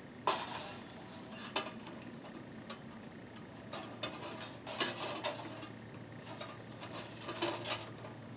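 Light metal clinks, taps and scrapes from a hand handling a cooking pot and its perforated metal windscreen on a backpacking canister stove, several short handling noises spread over a few seconds.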